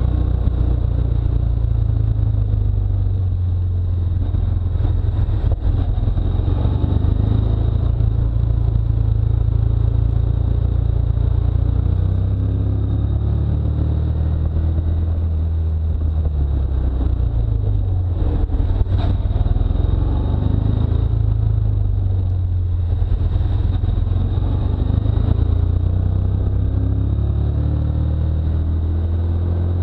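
Vehicle engine running at speed under a heavy low rumble, its pitch rising and falling as the speed changes through the bends and climbing again near the end.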